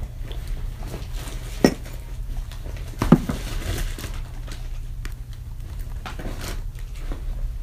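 Room tone of a home audio recording with a steady low hum, broken by two sharp knocks or clatters, one under two seconds in and a slightly louder one about three seconds in, and faint rustling between.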